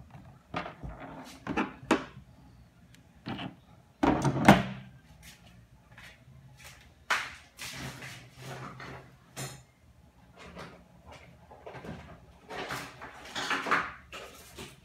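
Scattered clicks, knocks and rattles of hard plastic parts from a Kärcher K2 pressure washer's pump head being handled, pushed apart and set down on a work surface. The loudest knocks come about four seconds in.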